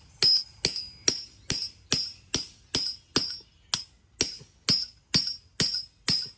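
Hammer striking a steel chain shackle in a steady run of about fourteen ringing metal blows, roughly two a second. The pin end is being beaten so it flares and cannot work loose.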